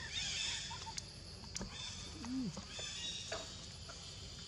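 Macaques squealing: three short high-pitched calls, one at the start, one about two seconds in and one about three seconds in. Between the last two comes a brief low call that rises and falls, and a couple of sharp clicks fall in the first two seconds.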